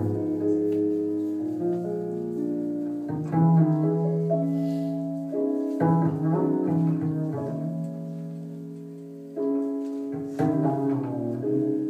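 Slow instrumental music led by low strings: sustained bowed notes mixed with plucked notes, with new notes coming in every few seconds.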